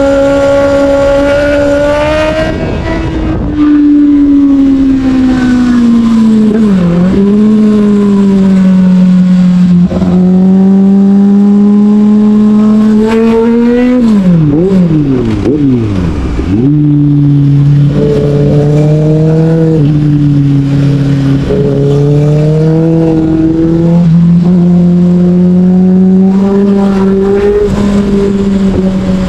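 Sport motorcycle engine running hard, its revs climbing and dropping through gear changes. About halfway through there is a quick series of throttle blips, as on downshifts into a corner.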